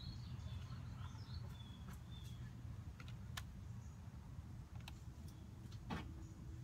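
Quiet outdoor ambience: a low steady rumble with faint bird chirps in the first couple of seconds, and a few light clicks later on.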